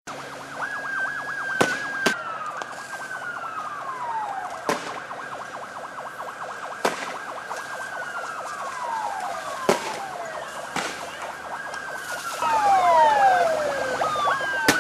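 Police sirens wailing, each note jumping up and then sliding slowly down, with several overlapping and growing louder near the end. Sharp bangs go off at irregular intervals over them.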